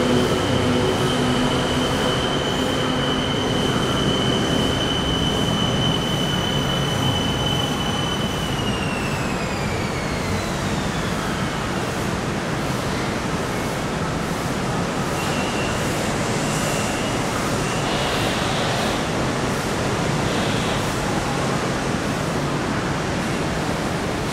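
BTS Skytrain electric train running with rumbling rail noise, its high motor whine holding steady and then falling in pitch from about eight seconds in as the train slows. A few short high squeaks come later.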